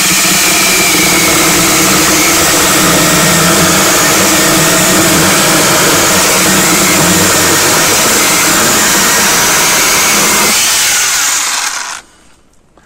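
HYCHIKA 8-inch brushless battery mini chainsaw running steadily under load as it cuts through a dry almond log, a very hard wood. Its sound lightens about ten and a half seconds in and stops shortly before the end.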